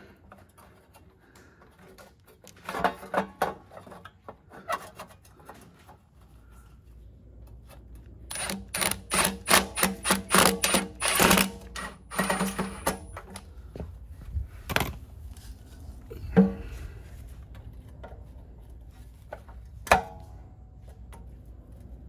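Metal clicking and knocking as the recoil starter housing is seated back onto an old Briggs & Stratton lawn-engine. There are a few clicks, then a quick run of sharp clicks about midway, then three single knocks.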